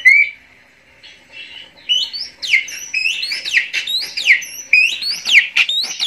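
Recorded songbird song played from a phone through a small homemade amplifier and a bare TV speaker, loud and clear: quick whistled notes sweeping up and down, sparse for the first second or two, then coming thick and fast.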